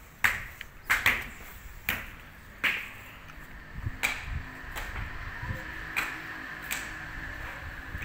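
Sharp knocks with a short ring, coming irregularly about once a second, over a faint steady high tone.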